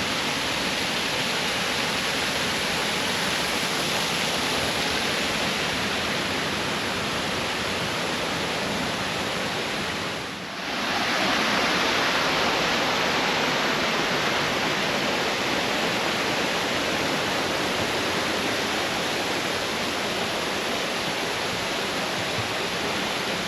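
Waterfall rushing steadily, a dense even roar of falling water, with a brief dip about ten seconds in before it comes back slightly louder.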